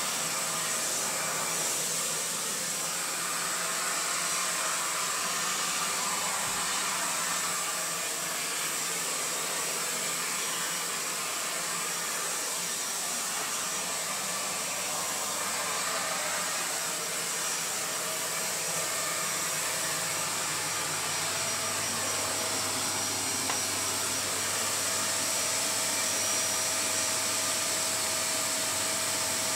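Dyson Cinetic Big Ball Animal canister vacuum cleaner running steadily, a constant rush of airflow with a steady motor whine, while its brush tool sucks along the edge of a hard floor.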